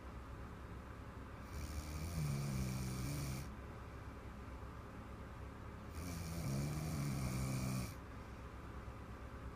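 A little girl snoring loudly in her sleep: two long rasping snores, each about two seconds, about four and a half seconds apart, with quieter breathing between them.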